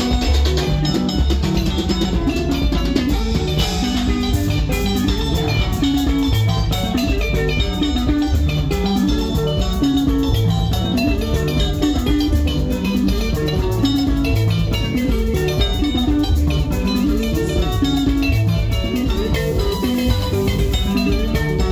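Live sungura band playing an instrumental passage: bright plucked electric guitar lines over a five-string bass guitar and a drum kit, in a steady, even rhythm with no singing.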